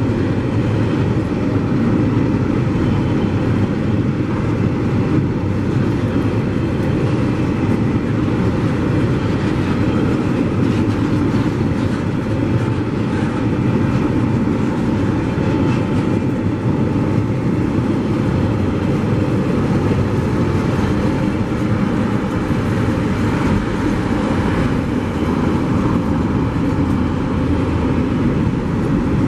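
Empty freight wagons of a TasRail container and log train rolling steadily past at a level crossing: a continuous rumble of steel wheels on the rails.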